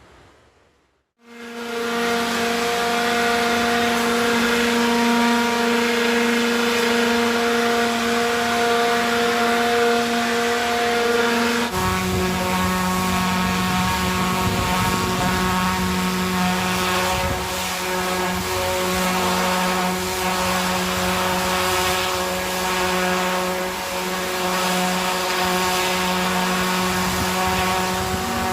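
Loud, steady machinery drone with a strong hum, starting about a second in; about twelve seconds in it switches abruptly to a lower-pitched hum.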